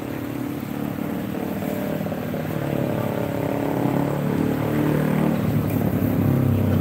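Motorcycle engines running on the road, several at slightly different pitches, growing steadily louder as they approach.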